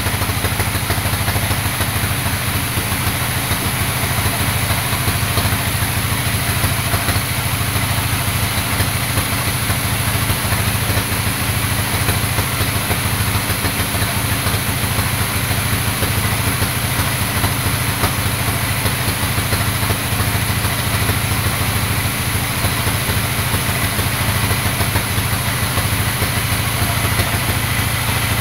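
Band sawmill running steadily as its blade cuts through a teak log: a continuous low mechanical hum with a dense hiss over it.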